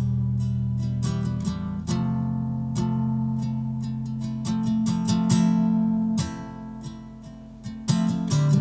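Nylon-string acoustic guitar played in slow plucked chords, the low notes ringing on under each new chord. It falls quieter about six seconds in, then picks up again with strong chords near the end.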